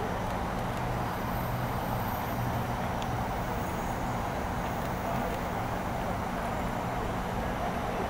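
Steady outdoor city background noise: an even low rumble with a faint hum underneath.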